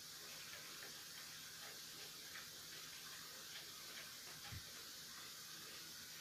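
Faint, irregular ticks and scrapes from kittens scrabbling in a wicker basket, with one soft thump about four and a half seconds in, over steady hiss and a low hum.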